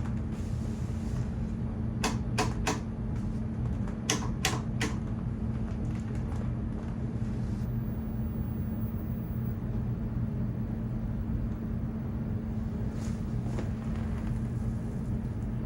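Sharp clicks of parts being handled and fitted as the television is reassembled, in two quick groups of three about two and four seconds in, over a steady low hum.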